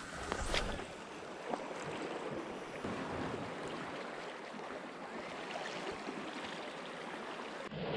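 Waves washing against shore rocks, a steady rush of water, with a short knock about half a second in.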